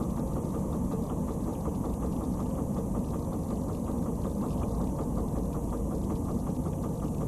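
Tow truck's engine idling steadily, heard from inside the cab: an even low rumble with a fast, regular pulse.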